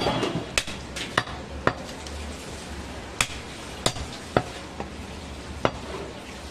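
Large butcher's cleaver chopping goat meat into chunks on a wooden chopping block: a string of sharp chops at an uneven pace, with a pause about two to three seconds in.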